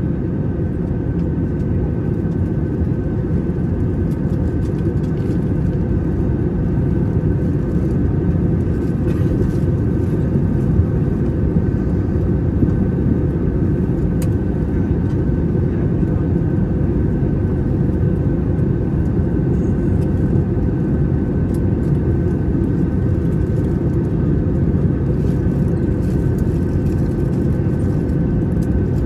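Steady cabin noise of an Airbus A320neo in flight: a low roar of engines and airflow, with a faint steady whine above it.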